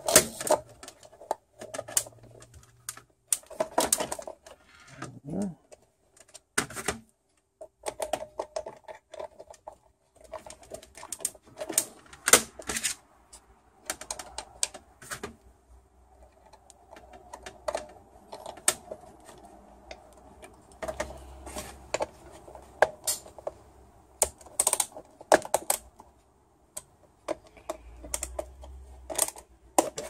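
Irregular clicks and taps of a small screwdriver turning screws back into the black plastic housing of a Mercedes PSE central-locking pump, with the plastic parts knocking as they are handled.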